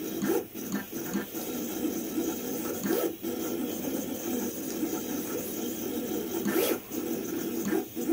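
Vevor 28-inch commercial vinyl cutter's carriage and stepper motors whirring in short, quickly changing runs as it traces an intricate graphic on paper, with occasional clicks of the tool head.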